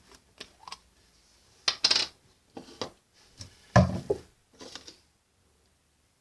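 Knocks, clicks and clatter of slime-making containers, a bottle and a spoon being handled and set down on a table, loudest about two and four seconds in, stopping abruptly about five seconds in.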